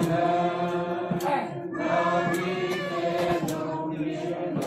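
A small congregation singing a hymn together in held, sustained notes.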